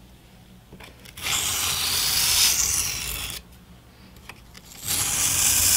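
A Mora Bushcraft Forest knife's Scandi bevel scraping across a coarse, fast-cutting whetstone in slow, edge-leading cutting strokes. There is one stroke of about two seconds, and a second one starts near the end. These single cutting passes take the burr off and finish the edge.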